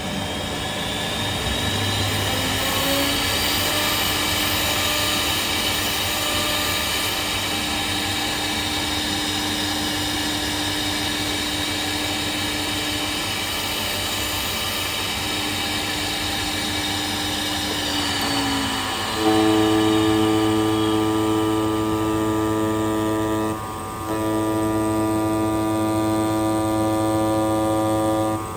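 Computer-controlled digital knife cutting machine running: a steady mechanical whine rises in pitch over the first few seconds and then holds. About two-thirds of the way in it falls away and gives way to a louder, steady motor hum, which breaks off briefly twice near the end.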